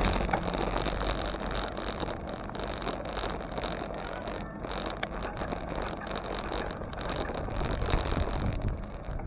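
Wind rushing over the microphone of a camera on a moving bicycle, with a steady low rumble of road noise.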